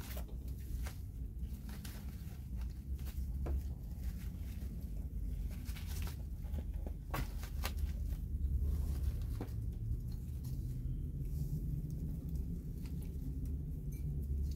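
Scattered light clicks and rustles of hands working in a plastic bin of wood-shaving bedding as rat pups are set in one by one, over a low steady hum.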